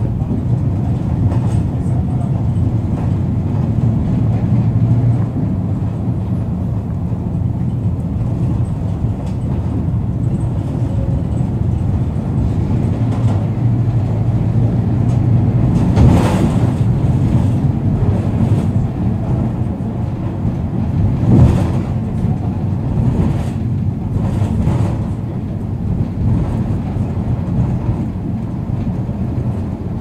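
MAN D0834 four-cylinder inline diesel of a Volkswagen 17-230 OD bus running, a steady low drone. A few short sharp noises come in the second half, the loudest about halfway through.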